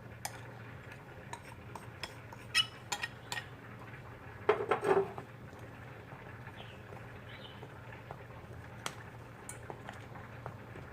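Kitchen utensils and dishes clinking and knocking, with scattered light clicks and a short, louder clatter about halfway through, over a steady low hum.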